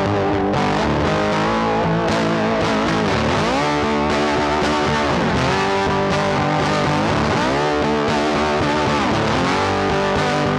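Music with distorted electric guitar, continuous and at an even loudness, with sliding, bending notes.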